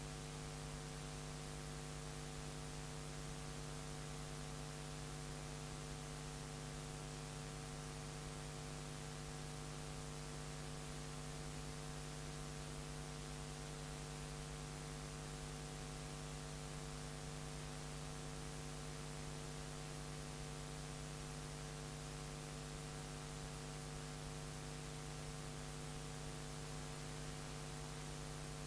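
Steady electrical mains hum with a layer of hiss: one low buzzing tone with a stack of higher overtones, unchanging throughout.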